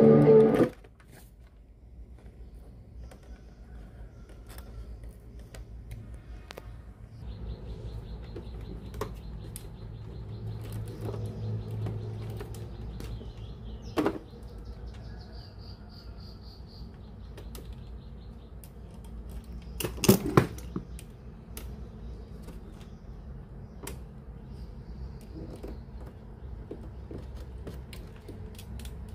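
Scattered clicks and knocks from handling the cassette radio during repair, the loudest about halfway through and again a little later, over a low hum that gets stronger a few seconds in.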